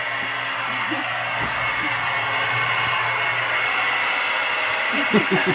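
Hair dryer running steadily with an even whoosh and a faint high whine, blowing hot air to thaw the iced-up evaporator coils of a refrigerator.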